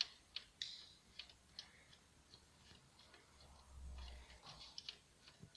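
Faint, irregular light clicks and taps of hands handling metal parts at the timing-belt end of a diesel engine, with a soft low rumble a little past the middle.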